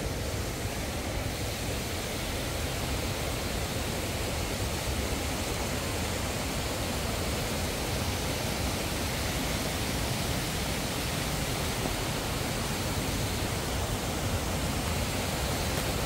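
Steady rush of a waterfall and stream: an even, unbroken hiss of running water.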